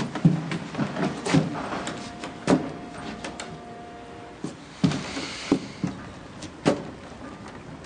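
Footsteps going up steps: a quick run of knocks that thins out and fades over the first couple of seconds, followed by a few scattered single knocks.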